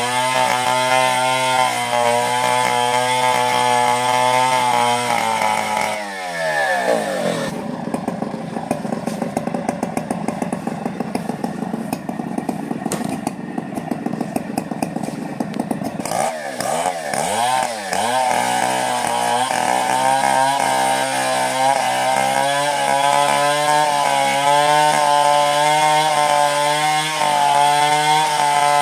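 Stihl chainsaw running at high revs, cutting coconut wood. About six seconds in it drops to idle, and around sixteen seconds it revs back up and runs high again.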